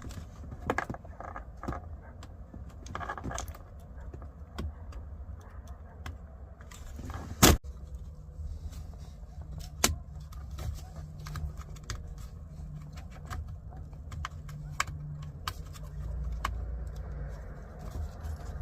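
Small plastic clicks and rattles from a truck's door window-switch panel being pried out, unplugged and a new switch fitted, with one loud sharp snap about seven seconds in. A low steady hum runs underneath.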